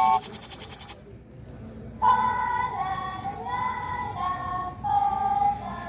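Sound-book speaker playing a short tune: a melody of held notes, stepping up and down, starts about two seconds in.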